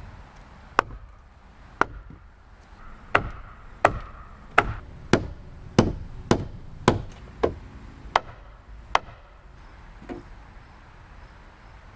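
Hammer striking wood, about a dozen sharp blows at an uneven pace, speeding up in the middle and stopping about nine seconds in: typical of nailing lumber while framing a wall.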